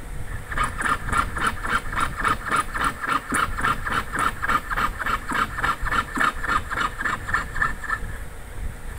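Jeweller's piercing saw with a fine, thread-thin blade sawing through a metal plate: quick, even rasping strokes, several a second, easing off near the end.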